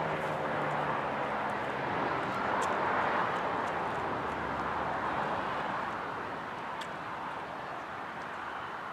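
Federal Signal 2001-SRNB electromechanical rotating siren winding down. Its low falling tone fades out about half a second in, leaving a noisy rush that slowly dies away as the rotor coasts down.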